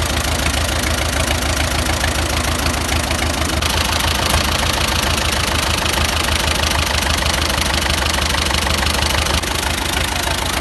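Fiat tractor's freshly overhauled diesel engine idling steadily, with an even knock of its firing strokes. The note grows a little louder and brighter about three and a half seconds in and eases back near the end.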